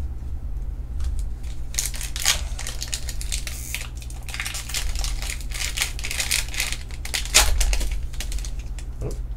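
Foil wrapper of a Pokémon booster pack crinkling and tearing as it is ripped open by hand: a run of crackly rustles, loudest about two seconds in and again near seven seconds, over a steady low hum.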